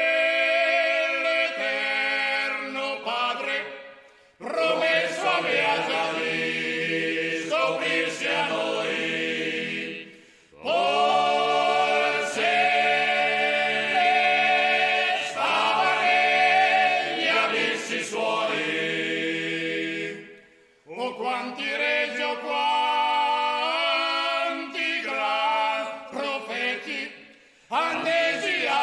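Men's voices singing a sacred song in Italian a cappella, in sustained close harmony. The singing goes in long phrases, each ended by a short breathing pause, about 4, 10, 20 and 27 seconds in.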